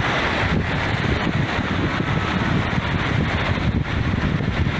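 Wind buffeting the microphone over the steady rush of a swollen, fast-flowing river in flood, its muddy water churning at the bank.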